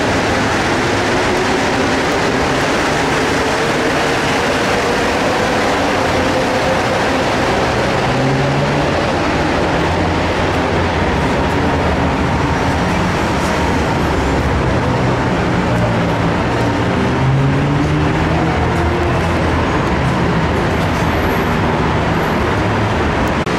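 Mexico City Metro train noise at the platform: a loud, steady rumble with a whine that rises slowly in pitch over several seconds, and a shorter rising whine later on.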